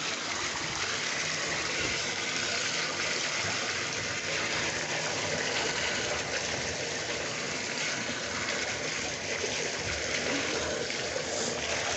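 Water running steadily from a bathtub spout into the tub as it fills.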